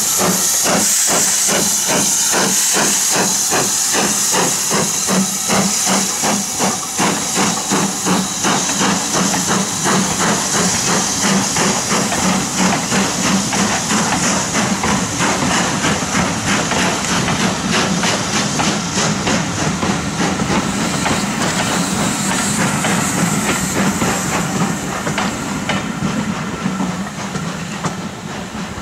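Southern Railway U class 2-6-0 steam locomotive No. 31806 pulling away, its exhaust beats coming faster as it gathers speed over a loud hiss of steam escaping around the cylinders. The beats and hiss fade near the end as the train moves off.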